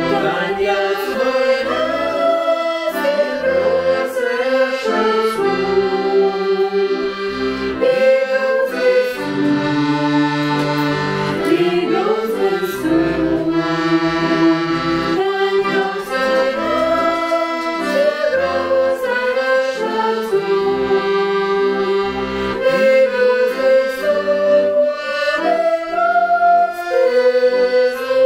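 A piano accordion playing a tune: a melody on the keyboard over low bass notes and chords, continuously.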